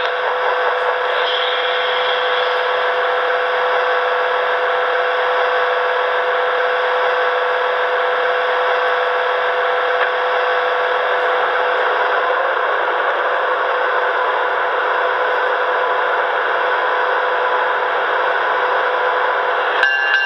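Onboard sound system of a Broadway Limited HO-scale GG1 electric locomotive model, heard through its small speaker. It plays a steady electric-locomotive running hum and rush with a strong steady tone through it, and the sound shifts to new tones just before the end.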